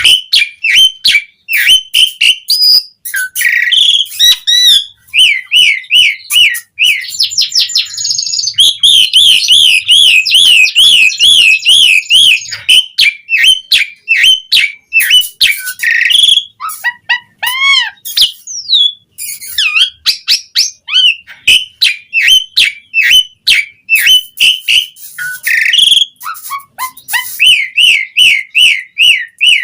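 Asian pied starling (jalak suren) singing loudly and without pause: fast runs of repeated whistled notes, a rapid rolling warble in the middle, chattering and a few downward-slurred calls.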